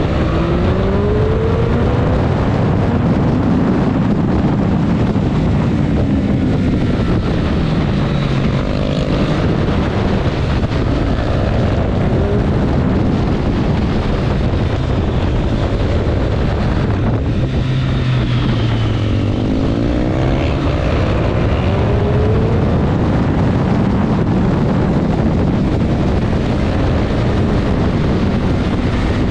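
Triumph Street Triple RS 765's inline-three engine running hard on track, its revs rising in pitch three times as it accelerates and dropping back in between, over steady wind noise.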